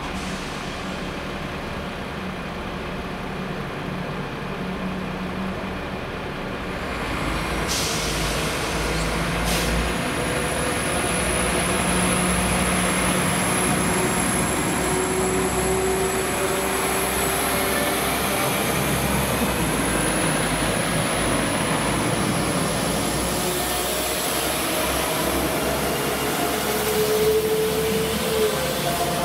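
Diesel train running at the station, its engine hum growing louder about seven seconds in and then holding steady, with a thin high-pitched whine above it and two sharp clicks soon after the rise.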